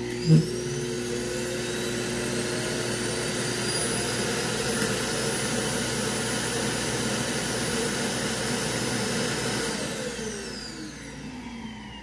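An iRobot Clean Base's suction motor evacuating the docked Roomba i7+'s dust bin into the base's disposal bag. A loud, steady rush of suction comes with a whine that rises as it spins up, and there is a sharp thump just under half a second in. From about ten seconds in it spins down, its whine falling away.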